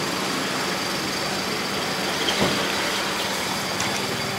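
A motor running steadily: an even hum with hiss. A light click comes about two and a half seconds in.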